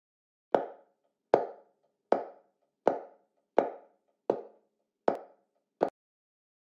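Eight sharp knocks, evenly spaced about three-quarters of a second apart, each dying away quickly; the last is short and cut off.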